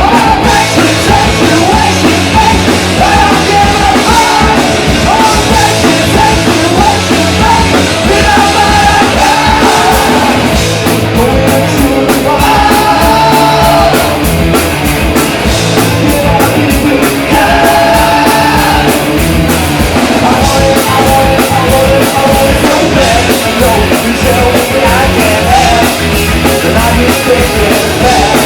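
Punk rock band playing live: distorted electric guitars, bass and fast drums with a lead vocal singing over them.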